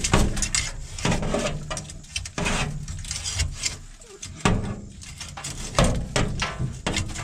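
Irregular knocking, scraping and rustling, a dozen or so sharp sounds at uneven spacing over a low rumble, as a combine's rear screen clogged with dead frogs is handled at close range.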